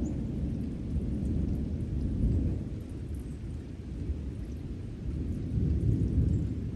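Low rolling thunder from a severe thunderstorm, a deep rumble that eases off midway and swells again near the end.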